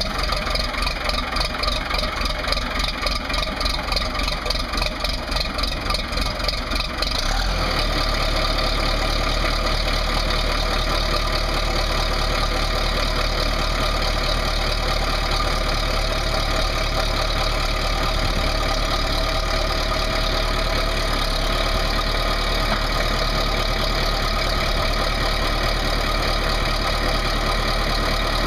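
Cummins 4B3.9 four-cylinder diesel in an International TD7C crawler dozer, just started and running with an uneven, pulsing beat. About seven seconds in it settles into a steady, even run.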